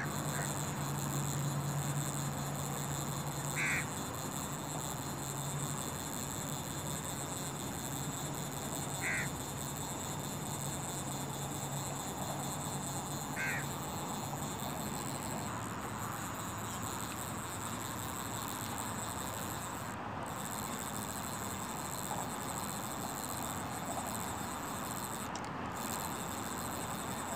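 A bird giving three short calls a few seconds apart over a steady outdoor hiss with a high, even drone; a low hum fades out in the first few seconds.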